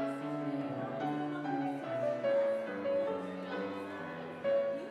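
Instrumental keyboard music in a classical style, a line of held notes moving from chord to chord, with a fresh loud entry near the end.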